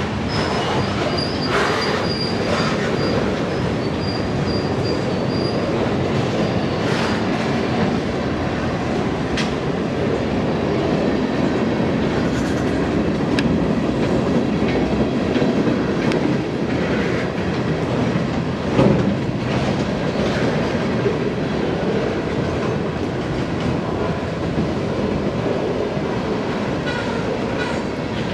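Norfolk Southern freight train rolling slowly past: steady rumble of wheels on rail with irregular clacks and knocks over the joints, the loudest about two-thirds of the way through. A thin, high, broken wheel squeal is heard in the first few seconds.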